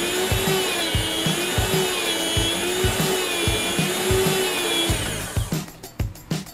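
Electric home meat slicer running as it cuts venison salami, its motor hum rising and falling in pitch about once a second; the motor stops about five seconds in. Background music with a steady drum beat plays underneath.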